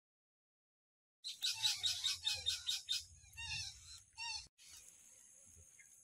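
Betet parakeets calling: a fast run of loud, harsh, repeated high-pitched calls starting about a second in, then looser calls. After a brief break past the middle, a steady high-pitched hiss takes over with a few faint chirps.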